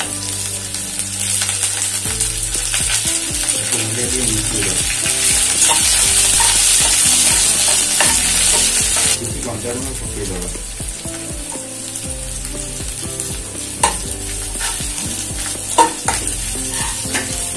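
Sliced onions and curry leaves sizzling in hot oil in a nonstick kadai while a spatula stirs them. The sizzle is loudest for the first nine seconds and then drops suddenly, and near the end there are a few sharp clicks of the spatula against the pan.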